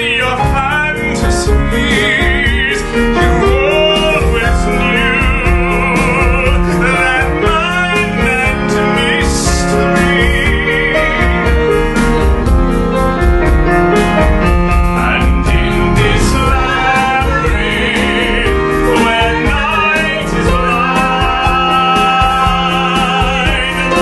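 Classical-style singing with a strong vibrato on long held notes, accompanied by a grand piano.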